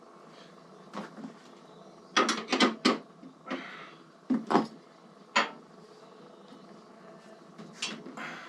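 Sharp knocks and clunks of hard parts being handled while fitting a saddlebag's mounting hardware. A quick run of about four comes around two seconds in, two more just past four seconds, then single knocks near five and a half and eight seconds.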